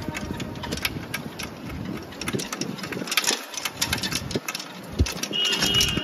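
Motor rickshaw riding along, its engine running under a constant clatter of rattles from the body. A short, steady high-pitched tone sounds near the end.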